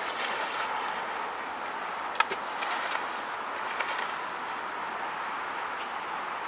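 A dog swimming in a river, paddling and splashing through the water, with a few sharper splashes between about two and four seconds in over a steady rushing hiss.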